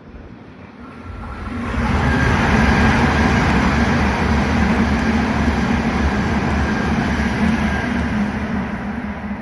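Tohoku Shinkansen Hayabusa passing through a station at reduced speed under a strong-wind restriction. A steady rumble and rush builds over about a second, holds for several seconds and starts to fade near the end.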